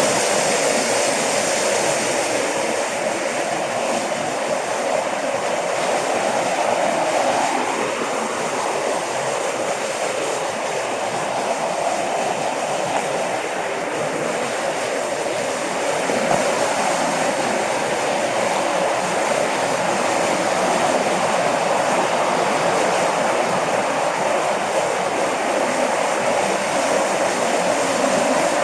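Mountain valley stream rushing, a steady, unbroken roar of water.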